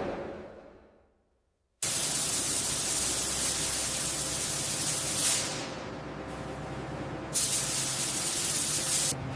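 A steady hissing rush of noise that starts abruptly after a brief silence about two seconds in, drops lower just after the middle and comes back louder for the last couple of seconds.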